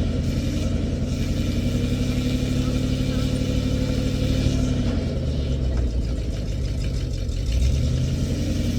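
Old International backhoe's engine running steadily. About five seconds in its note drops lower for a few seconds, then comes back up near the end.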